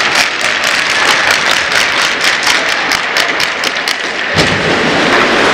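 Ice hockey game sounds in an echoing rink: a steady hiss with many sharp clicks and knocks, several a second, as of sticks, puck and skates on the ice. Lower crowd noise rises about four seconds in.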